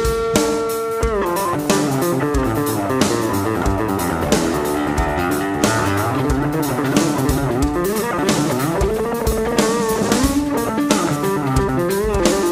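Live instrumental rock band playing. A lead line holds one note for about a second, then moves into fast melodic phrases with pitch bends, over a drum kit and bass.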